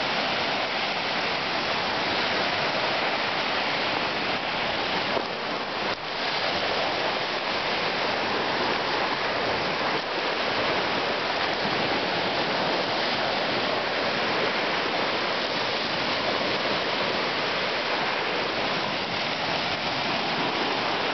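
Small lake waves breaking and washing steadily onto a pebble shore, a continuous rushing hiss with a brief dip about five seconds in.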